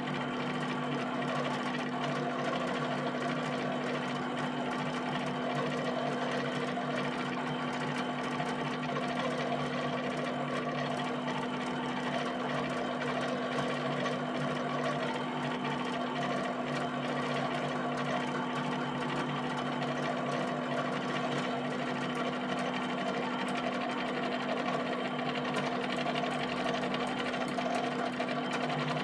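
HP 7585B pen plotter drawing dots: a steady motor hum under a continuous, rapid run of pen taps on the paper, a busy mechanical chatter.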